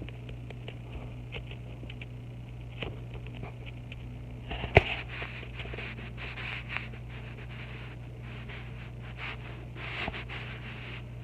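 Scattered light scraping and tapping over a steady low hum, with one sharp click about five seconds in.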